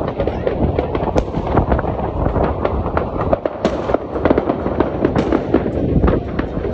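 Large professional fireworks display: aerial shells bursting and rows of ground-level effects firing, a dense run of sharp bangs and crackles in quick succession with no break.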